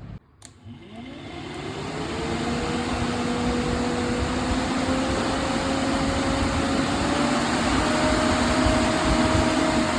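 Swift Dzire's electric radiator cooling fan switching on with a click and spinning up: a whine rises over about two seconds, then holds steady and creeps a little higher over the rush of air as the fan runs at speed.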